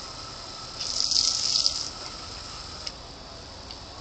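Water jet from a lawn sprinkler spraying past: a loud hissing gush of spray lasting about a second, starting just under a second in, over a faint steady hiss.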